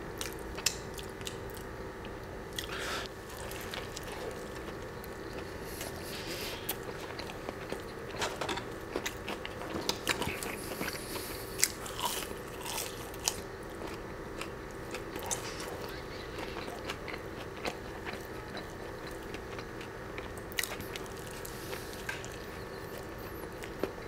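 Close-miked biting and chewing of a Chick-fil-A Spicy Deluxe fried chicken sandwich: crisp crunches from the breading and wet mouth sounds, with scattered sharp crackles. A faint steady hum runs underneath.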